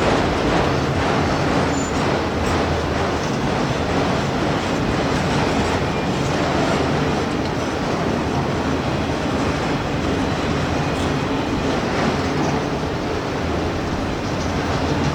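CSX freight train rolling past, a steady rumble of steel wheels on rail with a few faint clicks.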